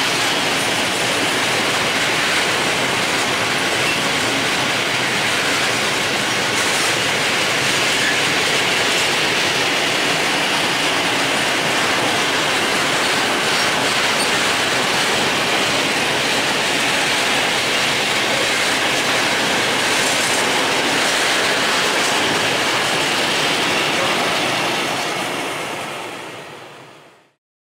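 A freight train of open-top coal wagons rolling past on the rails: a steady rush of wheel and rail noise. It fades out near the end.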